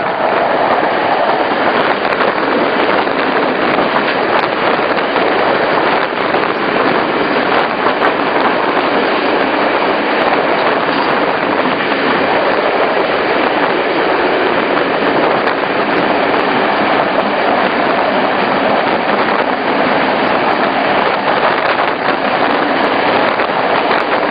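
Regional passenger train running along the line, heard from inside the carriage: a steady, even noise of the wheels on the rails and the moving coach.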